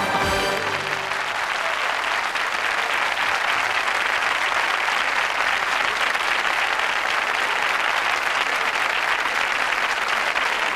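Studio audience applauding steadily, a dense wash of clapping that takes over as the song's last note and music stop in the first second.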